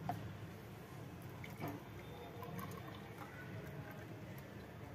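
Thick chocolate milkshake being poured from a mixer-grinder jar into a glass: faint pouring and dripping, with a couple of light clicks, one at the start and one about a second and a half in.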